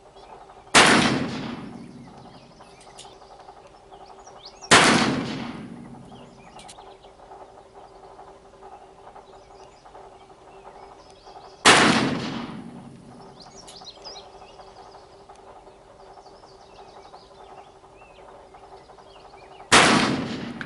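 Four shots from a Pietta 1858 Remington-pattern .44 black-powder percussion revolver, spaced several seconds apart, each a sharp report whose echo fades over about a second.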